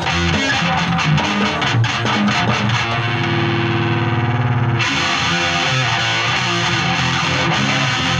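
Electric guitar played through distortion: quick picked notes and riffs, with a chord held ringing for about two seconds in the middle.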